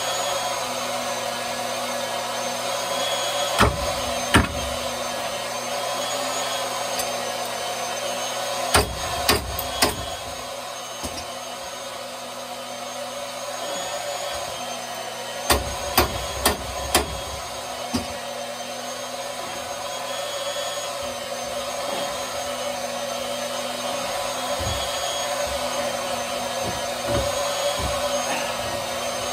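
A wrench clanking and knocking on overhead plumbing fittings as unions are broken loose: two knocks about four seconds in, a cluster around nine seconds, and another cluster around sixteen seconds. Under it a steady motor hum runs throughout, the pump draining down the old water heater.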